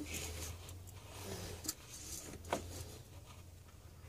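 Faint clicks and light handling noise from an oil filter wrench being turned on a spin-on oil filter, over a low steady hum. Two sharp clicks come about a second apart near the middle.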